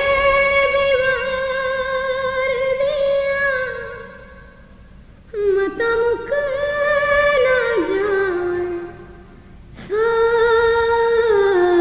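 A woman singing an Urdu noha, a Muharram mourning lament, in long held, wavering notes. She sings three phrases with short pauses between them, and the last one slides down in pitch.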